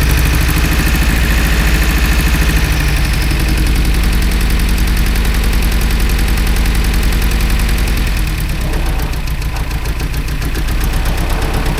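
Car engine idling with an even, rapid pulse, a little quieter in the last few seconds.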